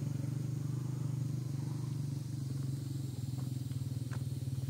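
A small engine running steadily at idle, a low, even drone with a fast pulse.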